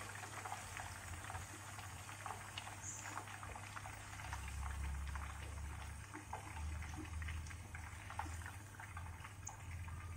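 Battered banana fritters deep-frying in hot oil in a pan: a faint, steady sizzle of many small crackles and pops.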